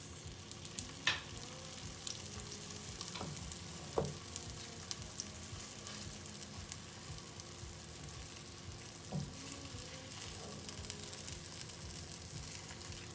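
Oil sizzling and crackling steadily under a wheat-flour flatbread in a nonstick frying pan, freshly oiled for its second side, while a silicone spatula moves and presses it. A few light knocks, the sharpest about a second in and at about four seconds.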